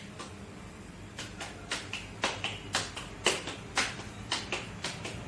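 Wet hands patting a disc of bajra (pearl millet) dough flat between the palms to shape a rotla. A quick, even run of slaps starts about a second in.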